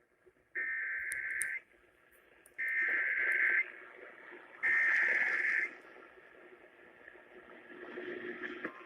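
NOAA Weather Radio EAS/SAME header: three one-second bursts of harsh, buzzing digital data tones about a second apart, heard over radio static. Near the end the steady 1050 Hz warning alert tone begins, which signals that a warning message is about to follow.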